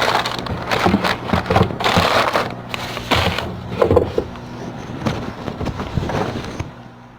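Plastic bag and paper rustling and crinkling, with light knocks as the wrapped food is handled. The sound fades out near the end.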